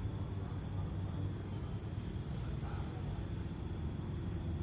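Night insects chirring in one steady high-pitched band over a continuous low rumble.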